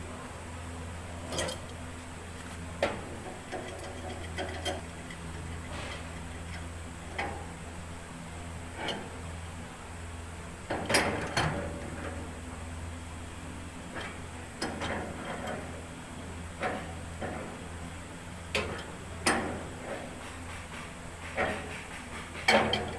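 Irregular clinks and knocks of hand work on an engine during an oil and filter change, the loudest about eleven seconds in and near the end, over a steady low hum.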